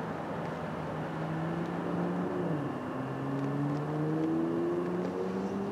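NJ Transit ALP-46A electric locomotive's traction motors and inverters whining as it accelerates. Several tones hold steady, drop in pitch about two and a half seconds in, then climb steadily.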